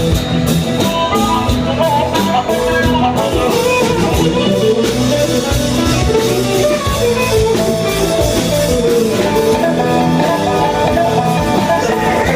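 Live band playing an instrumental passage, with guitar and a drum kit keeping a steady beat.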